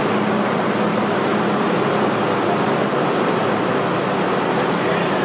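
Steady hum and rush of a stopped R42 subway car's air-conditioning and auxiliary equipment, the train standing at the platform with its doors open.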